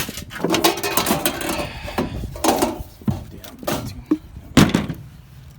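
Plumbing parts and tools being handled: rustling, then a series of sharp knocks and clatters, the loudest a little before the end.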